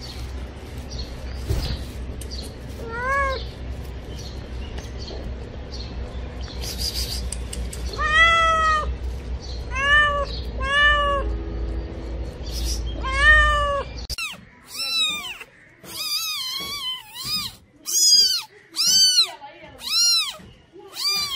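Domestic cat meowing: a few separate meows over a low background rumble, then, from about two-thirds through, a quicker run of meows about one a second.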